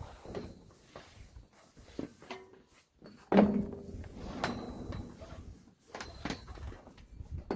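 Scattered knocks and clicks from old belts and parts being pulled out of a baler, with one loud clank that rings briefly a little over three seconds in.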